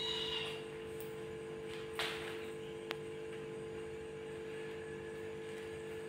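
Steady electrical hum in a quiet room, with a brief high squeak at the start, a soft knock about two seconds in and a sharp click a second later.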